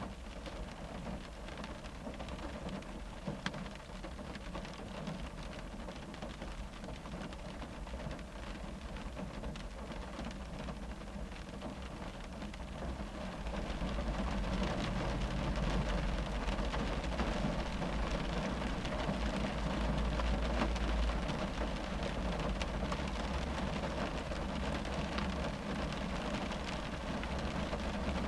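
Rain falling on a car's roof and windows, heard from inside the cabin: a dense patter of drops over a low rumble, getting louder and heavier about halfway through.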